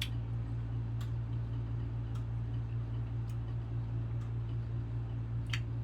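Faint sharp ticks about once a second over a steady low hum.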